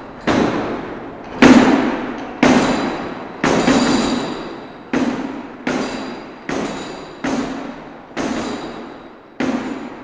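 Sound-effect recording of cannon fire at close range: about ten heavy booms, roughly one a second, each dying away before the next. The loudest comes about a second and a half in.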